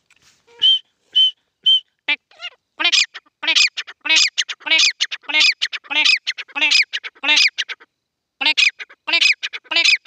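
Grey francolin calling. It gives three short clear whistled notes, then a loud, fast, repeated series of harsh calls that breaks off briefly near the end and starts again.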